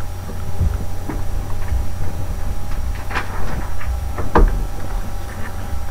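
Steady low electrical hum with a few scattered clicks and knocks, the loudest about three and four and a half seconds in.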